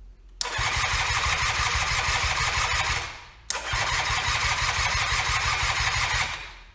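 Electric starter cranking the Eton Viper 90cc quad's two-stroke engine in two bursts of about two and a half seconds each, with a short pause between. Each time it cuts off without the engine catching: there is no spark, which the owner puts down to a missing earth to the spark plug.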